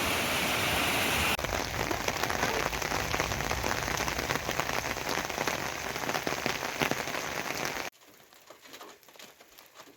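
Rain falling on a surface: a steady rush for the first second or so, then dense pattering full of fine drop ticks, which cuts off suddenly about eight seconds in, leaving only faint sound.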